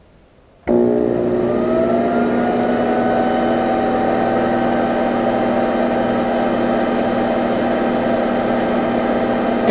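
Metal lathe switched on about a second in, its motor winding up to speed with a rising whine and then running steadily, spinning a scratch-built model steam engine's crankshaft and pistons in the chuck to run them in. A slight vibration goes with it, which the builder suspects comes from the loose eccentric on the end not running true.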